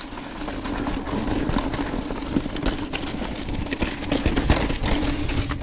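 Mountain bike descending a rocky, gravelly trail: tyres crunching over loose rock, with many quick knocks and rattles from the bike over the bumps and a low rumble of wind on the microphone.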